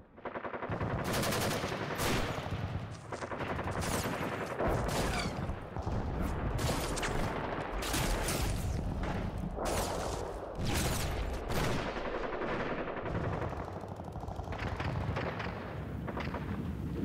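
Battle sound effect of dense gunfire: rifle and machine-gun shots following close on one another, over a steady low rumble.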